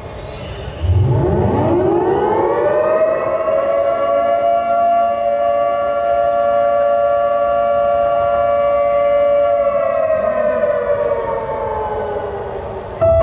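Civil-defence air-raid siren winding up from a low pitch to a steady wail, holding it for several seconds, then slowly winding down. A loud musical chord cuts in at the very end.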